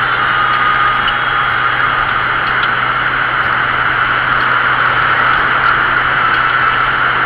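Steady running noise of a car on the move: even tyre and road rush with a constant low hum underneath.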